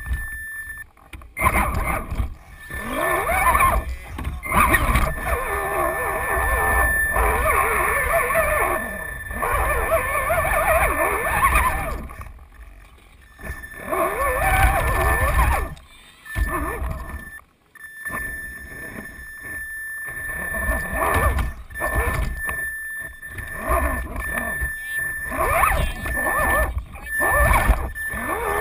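Electric RC rock crawler's motor and gears whining in bursts as the throttle is worked, the pitch rising and falling with speed, with short quiet pauses when it stops. Heard from a camera mounted on the truck itself, so the drivetrain is close and loud.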